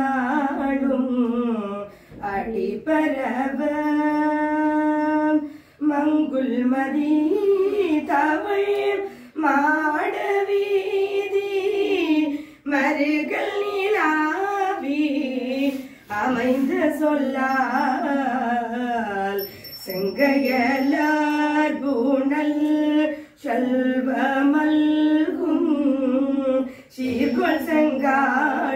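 A woman sings a Tamil Hindu devotional hymn unaccompanied, in long sung phrases with short breaths between them.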